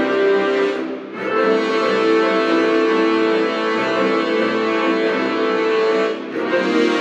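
Instrumental background music of sustained, held notes, dipping briefly about a second in and again near the end.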